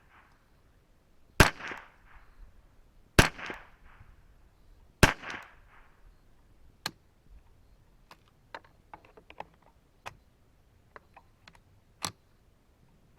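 .22 LR rifle shots from a semi-automatic Ruger 10/22 with a Kidd barrel: three shots a little under two seconds apart, each with a short echo. Then a single sharper click, followed by a run of small metallic clicks and rattles and one more click near the end: a round that failed to fire and the action being worked to clear it.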